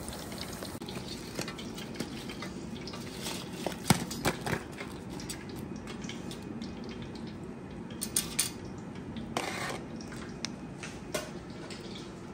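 Hot oil sizzling steadily around onion rings in a deep fryer basket. Scattered clinks and knocks of cookware are heard over it.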